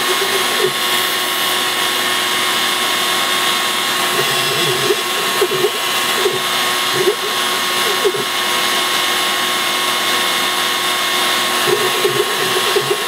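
Small CNC router cutting particle board: the spindle runs with a steady whine and hiss, while the axis stepper motors make short rising and falling whirs every second or so as the tool changes direction.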